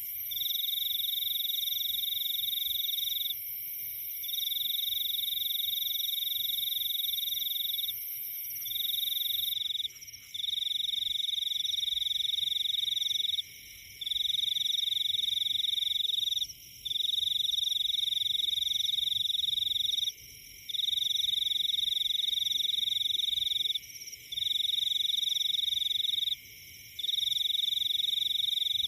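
A chorus of calling animals in tropical forest: a loud, high-pitched trill sounds in phrases about three seconds long, broken by short pauses, over a steady fainter high buzz.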